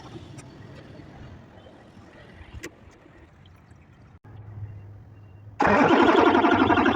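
A faint, low, steady hum of a truck engine running. About five and a half seconds in, loud electronic music with a fast pulsing beat cuts in suddenly.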